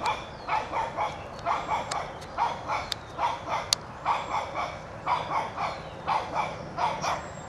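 Small dog, a Shih Tzu puppy, barking over and over: short yaps coming in quick runs of two or three, a fresh run about every half second.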